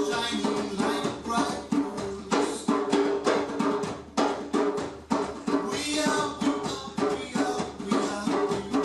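Live hand percussion playing a steady zouk rhythm, sharp drum strikes mixed with pitched tones.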